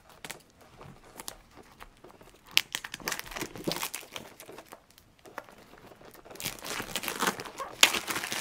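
Clear plastic shrink-wrap on a small cardboard box being picked open, torn and peeled off, crinkling. A few light ticks come first, then spells of crinkling about two and a half seconds in, and the loudest crinkling near the end as the wrap is pulled away.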